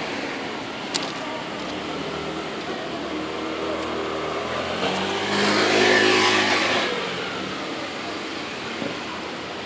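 Street traffic: a motor vehicle drives past, its engine growing louder from about two seconds in, loudest around six seconds, then fading. A single click about a second in.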